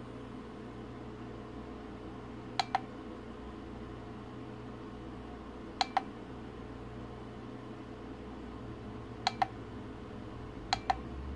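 The push-button on a Land Rover Defender 90 speedometer clicking four times, each a quick double click of press and release, as it switches the LCD between odometer and trip readings. A steady low hum runs underneath.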